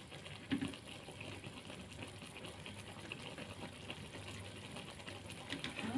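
Water spinach stir-fry in oyster-sauce liquid simmering in the pan, a steady bubbling with faint small pops. A single knock about half a second in.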